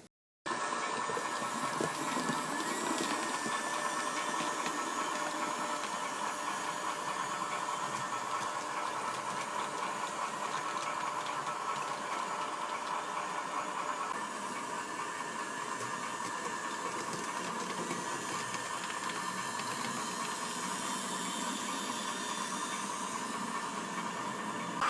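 Roco 63228 model locomotive running on track, its small electric motor giving a steady whine over a hiss of wheel and gear noise, with no real change in pace.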